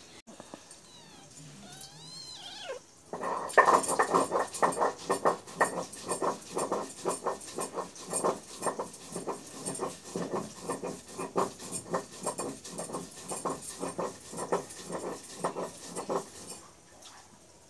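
Kittens play-fighting and making a loud, rapid, rhythmic cat sound that starts about three and a half seconds in and stops shortly before the end. A few faint high chirps come before it.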